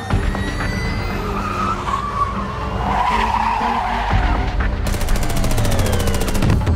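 Car tyres skidding and a car engine running hard, mixed over music. About five seconds in, a fast, even pulsing comes in.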